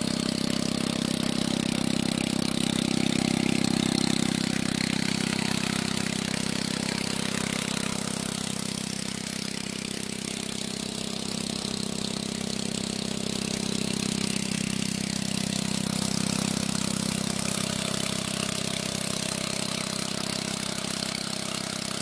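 Motorcycle's single-cylinder engine running steadily, driving a water pump that draws irrigation water from a pond through a hose.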